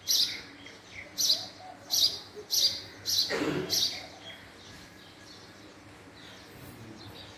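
House sparrow chirping: five short, loud chirps in the first three seconds, then the calls stop. A lower, noisier sound comes briefly about three seconds in.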